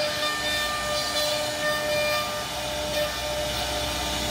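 CNC router spindle running with a steady high whine and overtones while its bit cuts into a wooden panel, over a constant hiss of cutting.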